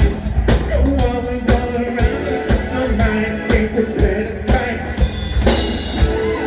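Live rock band playing: drums keep a steady beat of about two hits a second under electric guitar and bass, with a man singing into a microphone.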